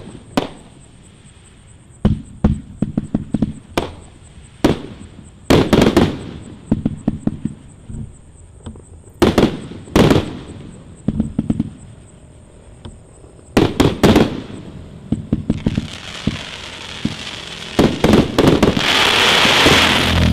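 Consumer fireworks going off: sharp bangs at irregular intervals, each followed by a flurry of rapid crackling pops. In the last third, a continuous hissing crackle builds up and peaks near the end.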